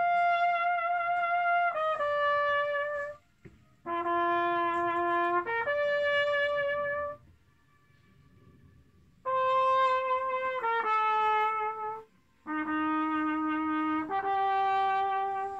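A trumpet-type brass horn played solo in four slow phrases, each of two or three held notes, with short pauses between them. Faint notes linger in the pauses, in keeping with the horn's echo coming back off the rock walls around the lake.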